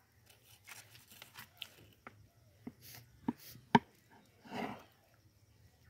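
Kitchen knife slicing through soft ripe papaya on a plastic cutting board, with several sharp taps of the blade hitting the board, the loudest a little past halfway, and a brief scraping rustle near the end.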